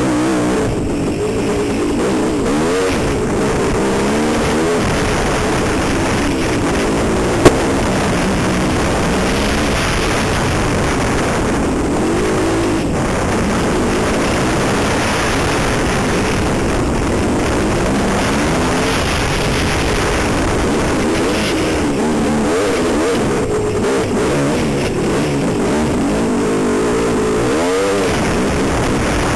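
Dirt bike engine revving up and down again and again as it is ridden along a trail, heard from the rider's helmet. A single sharp knock about seven and a half seconds in.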